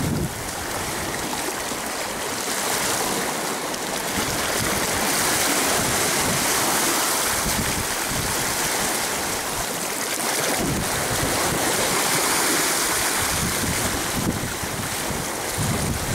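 Sea washing against the rocks in a steady surf hiss, with gusts of wind buffeting the microphone now and then.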